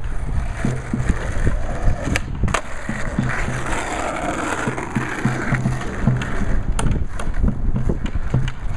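Skateboard wheels rolling over street asphalt: a steady gritty rumble whose hiss is strongest a few seconds in, with a few sharp clacks from the board.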